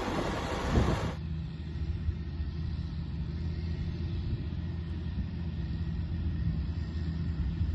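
Terra Gator self-propelled slurry applicator: for about the first second it passes close by on the road with a broad rush of tyres and engine, then its diesel engine is heard far off as a low, steady drone.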